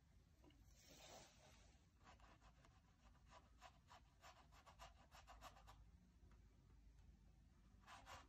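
Faint, quick scratchy strokes against a painting canvas, about four a second for several seconds, with a single brief scrape about a second in and another near the end.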